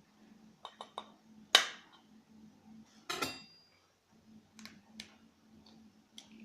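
Clinks and knocks of kitchen dishware and utensils. The loudest is a sharp ringing strike about one and a half seconds in. A second, ringing cluster follows about three seconds in, then a few lighter clicks.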